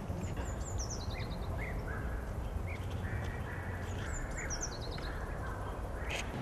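Birds chirping, with a quick run of high notes falling in pitch heard twice and scattered short chirps, over a steady low rumble.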